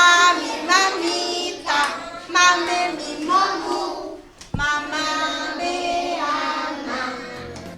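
Children singing together, holding a string of sung notes with short breaks between phrases.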